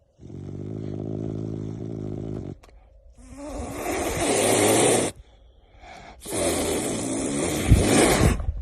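A caracal giving a low, steady growl for about two seconds, then two long, loud hisses, the second the loudest.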